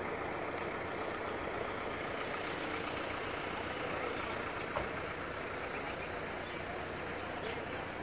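Steady background noise with an engine-like hum, and a single short click just before five seconds in.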